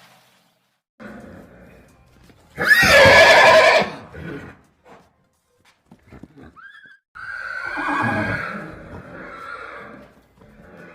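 Horse neighing twice: a loud whinny about three seconds in lasting over a second, then a longer, quieter one from about seven seconds, with a few small snorts and shuffles between.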